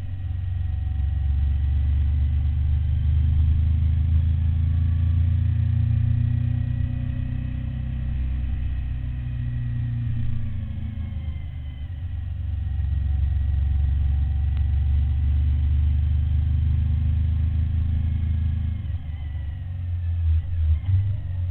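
Suzuki SV1000 V-twin engine heard from the rider's seat, pulling and easing off as the bike rides through a series of bends. Its deep note swells for a few seconds, dips, and swells again. A few sharp knocks come near the end.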